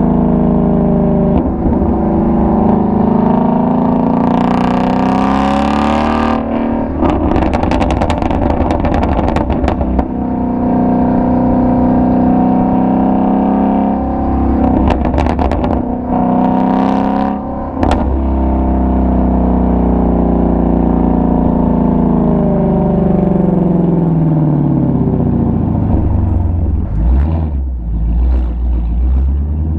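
Ford Shelby GT350's flat-plane-crank V8 exhaust rising and falling in pitch as the car accelerates and eases off. Runs of sharp pops and crackles from the exhaust come on lift-off, about seven seconds in and again around fifteen and eighteen seconds.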